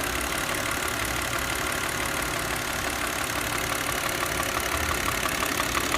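Audi C6's 2.4-litre V6 idling, with the intake manifold flap actuator's vacuum hose connected. About five seconds in, a fast, even tapping starts up. This is the rhythmic knock typical of a faulty intake manifold on this engine.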